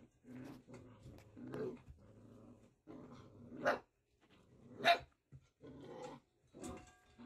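Six-week-old Pyredoodle puppies growling in a string of short, rough bursts while play fighting, with two sharper, louder yips about three and a half and five seconds in.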